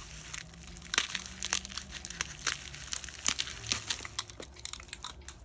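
Bubble wrap crinkling and crackling as it is pulled open and cut with a box cutter, in a quick run of irregular sharp crackles.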